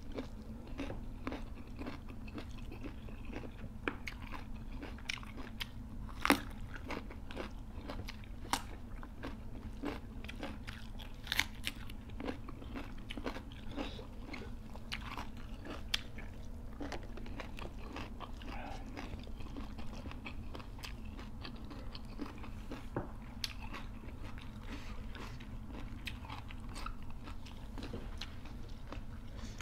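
Close-up chewing and crunching of rice, chicken curry and raw vegetables eaten by hand, with many sharp mouth clicks and smacks scattered throughout, over a steady low hum.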